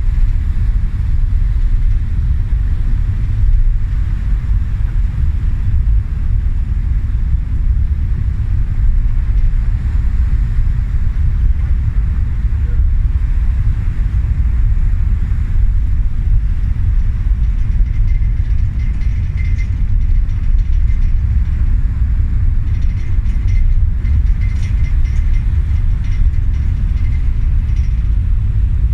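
Steady deep rumble of the ferry MV Armorique under way, heard from its open deck, with wind on the microphone.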